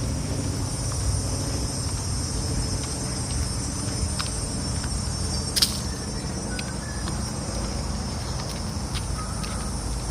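Steady high-pitched chorus of insects over a low rumble of street traffic, with a single sharp click about halfway through.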